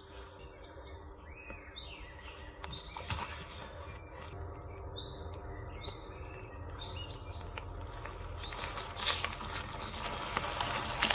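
Songbirds chirping in a forest. From about eight seconds in, a growing crackle and crunch of a mountain unicycle's knobby tyre rolling over a dirt and leaf-litter trail as it approaches and passes close.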